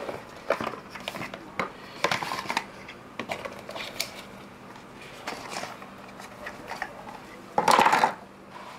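Cardboard retail box and paper inserts handled on a desk: the box is slid, opened and rummaged, giving scattered scrapes, taps and rustles, with one louder half-second rustle of paper or cardboard near the end.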